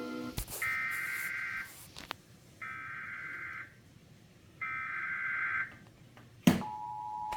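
Emergency Alert System SAME header: three identical bursts of warbling digital data tones, each about a second long with about a second between them. Near the end comes a sharp click, then the steady two-tone EAS attention signal begins.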